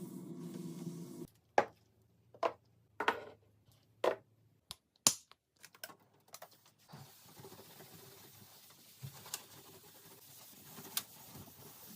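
Containers and items being handled and set down during fridge restocking: a steady low hum stops about a second in, then a run of sharp clicks and taps, about five loud ones over four seconds, followed by a quieter stretch with a few faint ticks.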